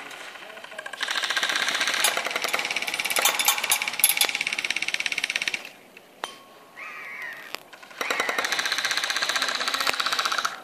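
Airsoft rifle firing on full auto: a rapid mechanical rattle in two long bursts, the first about four seconds long, then a pause with a single click, and a second burst of about two and a half seconds.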